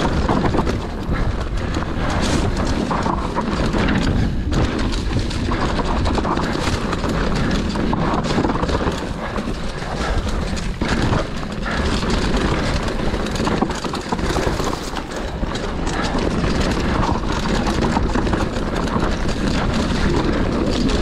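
Mountain bike riding down a dirt singletrack: continuous tyre and rolling noise with frequent knocks and rattles of the bike over bumps, under a steady rush of wind on the microphone.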